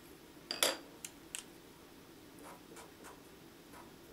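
A sharp click about half a second in and two lighter clicks after it, then short, faint strokes of a Sharpie felt-tip marker writing on paper.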